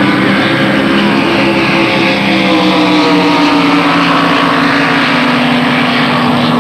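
Racing powerboat engines running at high revs as two boats race side by side: a loud, steady drone whose pitch slowly falls.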